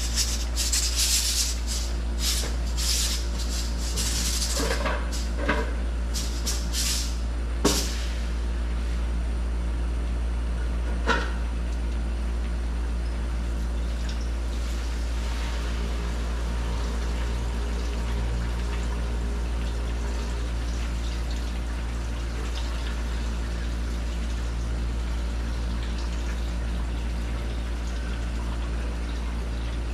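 Metal pot and lid clattering through the first several seconds, with sharper knocks near eight and eleven seconds. Under it a steady rushing noise runs throughout, from the open gas burner flaming under a large pot of boiling rice.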